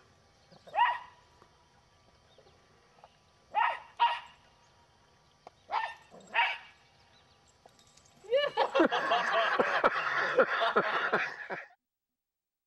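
Small dog barking: a few short single barks, in pairs at times, then about three seconds of rapid, overlapping barking that cuts off suddenly.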